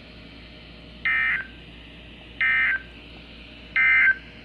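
Emergency Alert System end-of-message signal from a weather radio: three short buzzy data bursts about a second and a third apart, marking the end of the severe thunderstorm warning broadcast.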